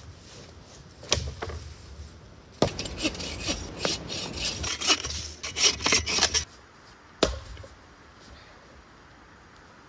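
Dry dead branches being broken up and worked for firewood: a knock about a second in, then a run of cracking and snapping from about two and a half to six and a half seconds. A single sharp axe strike into wood comes about seven seconds in.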